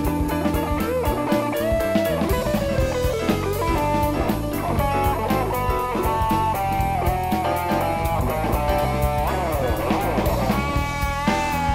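Rock music: an electric guitar plays a lead line that steps and bends between notes over a steady drum-kit beat.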